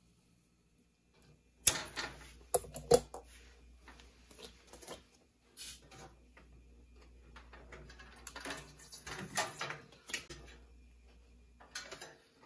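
Sharp plastic clicks and knocks of water purifier tubing and quick-connect fittings being handled around the filter cartridges, a close run of them after a second or so of near silence, then scattered lighter clicks and rustling with another cluster near the end.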